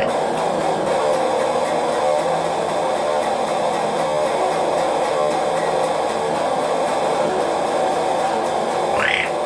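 Instrumental music led by guitar over a steady, dense drone, with a few short rising chirps near the end.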